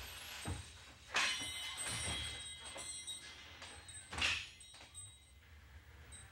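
A door bumping open and swinging shut, giving a few thunks and knocks. The loudest come about a second in and again about four seconds in.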